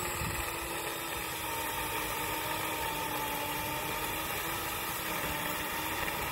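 Corded electric saw running steadily as it cuts into the base of a tree trunk. Its pitch sags slightly in the middle of the cut.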